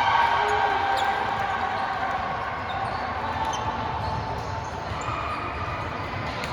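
Indoor court ambience during a volleyball match: shoes squeaking on the gym floor with short pitched squeals, a few faint knocks, and distant voices in a large echoing hall.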